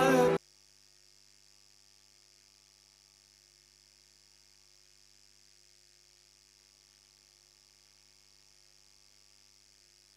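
Music with a singing voice cuts off abruptly about half a second in. After that there is near silence, with only a faint steady hum and hiss.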